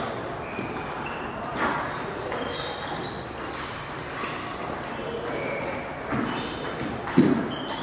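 Table tennis hall sounds: scattered short high pings and clicks from balls and shoes on the sports floor, with faint voices. A single louder low thump comes about seven seconds in.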